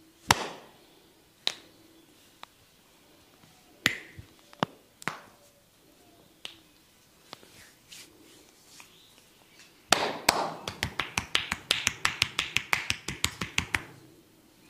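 A barber's hands striking a client's head during a head massage: a few scattered single slaps and snaps, then a fast, even run of slaps, about six a second, lasting some four seconds and stopping abruptly.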